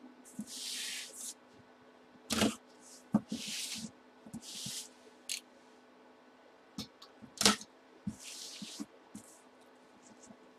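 Box cutter slicing the packing tape on a cardboard box in several short strokes, with cardboard handled and knocked between them; the sharpest knocks come about two seconds in and again past the middle.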